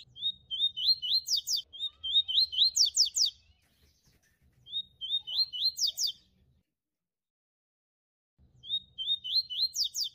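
Small caged songbird singing in four short bouts of quick, repeated rising chirps, each bout about a second and a half long, with silences between them.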